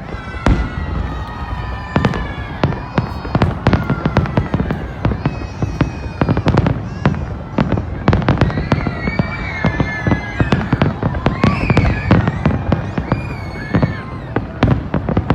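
Fireworks display: aerial shells bursting in rapid, irregular succession, several bangs a second over a continuous low rumble.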